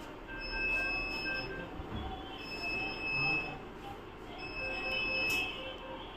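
Electronic alarm beeping from anaesthesia monitoring equipment: a steady high tone about a second long, repeating roughly every two seconds, with a quick run of shorter, lower beeps in the first second or so.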